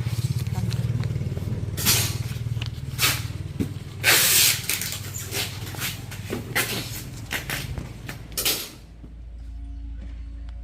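An engine running steadily with a fast low pulse, broken by loud rushing noises about 2 s, 4 s and 8.5 s in; near the end the engine note drops lower and quieter.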